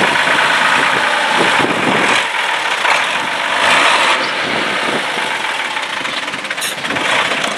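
Off-road 4x4's diesel engine working, its revs rising and falling, under a loud steady rushing noise.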